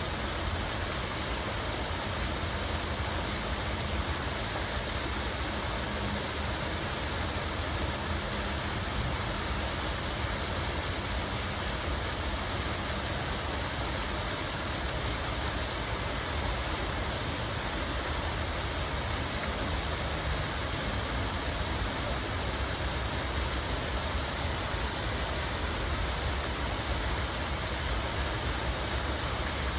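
Water running steadily in an even, unbroken rush.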